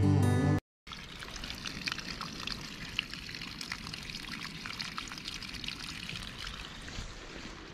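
Guitar music stops within the first second. After a brief silence, spring water runs from a cut plastic-bottle spout set in rock, a steady thin stream trickling and splashing onto stones and soil.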